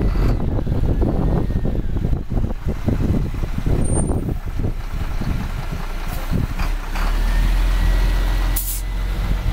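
2004 GMC C8C042 plow truck's diesel engine running with a low, uneven rumble. About seven seconds in it grows louder under a faint rising whine, and a short hiss of air comes near the end.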